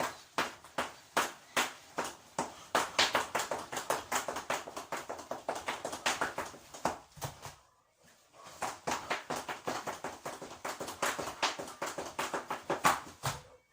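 Rapid, evenly repeated sharp clicks, several a second, in two runs broken by a short pause about eight seconds in.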